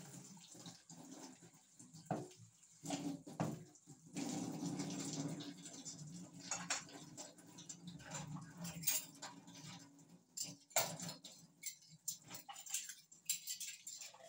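Dishwashing at a sink: water from a wall tap runs and splashes while plastic and metal ware knocks and clatters as it is rinsed by hand. The running water grows louder about four seconds in.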